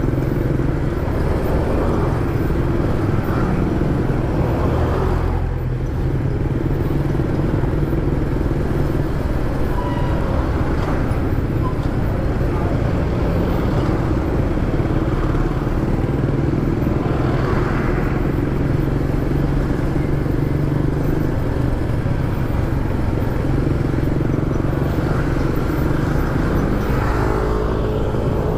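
Honda Airblade scooter's single-cylinder engine running at slow city-traffic speed under a steady low rumble of wind and road noise, with other motorcycles and vehicles passing close by.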